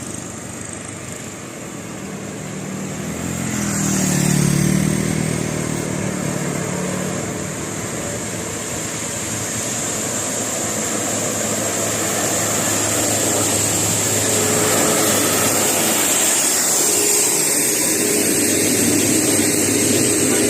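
Road traffic with a large vehicle engine. The engine grows loud and passes close about four seconds in, then engine noise builds again and holds steady.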